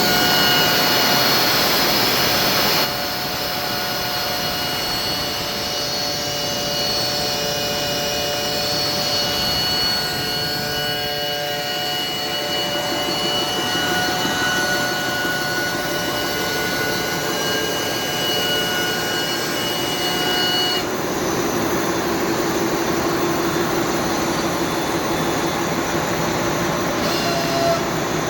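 Portable onsite crankshaft grinding machine running on a crankpin, a steady machine drone with several constant whining tones; the sound shifts abruptly about 3 seconds in and again about 21 seconds in.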